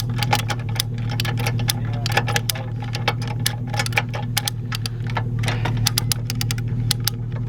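An engine idling steadily, with a rapid, irregular clatter of sharp clicks and ticks over it.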